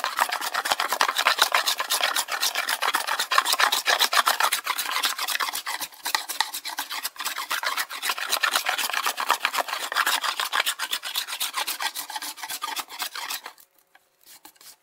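A No. 3 hand smoothing plane set for a very shallow cut, scrubbing over a glued-up hardwood cutting board to bring all the strips to the same height: quick rasping strokes one after another. The planing stops about a second before the end.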